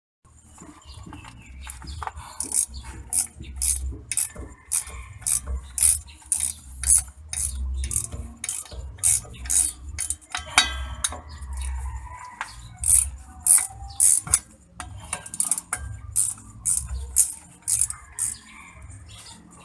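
Hand tools working on metal: sharp metallic clicks and clinks in a steady rhythm of about two a second, with a low rumble under them.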